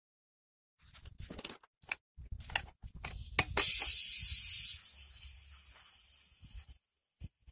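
A few clicks and knocks of hands on pipe fittings, then a loud burst of compressed air hissing out of a homemade sandblasting pressure pot for about a second, fading to a quieter hiss.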